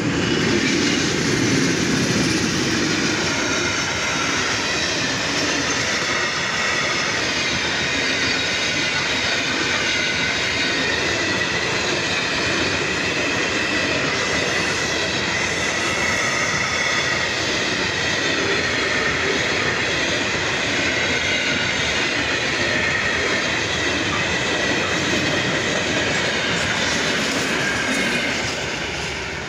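A freight train hauled by two MLW diesel locomotives passing close by. The locomotives' deep engine noise is loudest in the first few seconds, then a long line of freight wagons rolls past with a steady loud wheel-on-rail noise and a high ringing tone, fading near the end as the last wagon clears.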